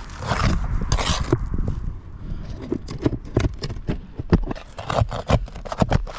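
A tool scraping against asphalt roof shingles, then a run of quick irregular taps and clicks as it works under the shingle.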